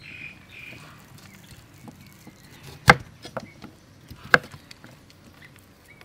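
Knife chopping carrots on a wooden cutting board: two sharp chops about a second and a half apart, with lighter taps between.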